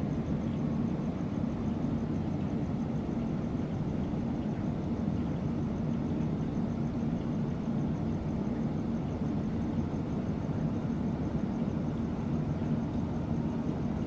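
Air-conditioning exhaust fan of an Indian Railways LHB coach running: a steady hum with a low drone.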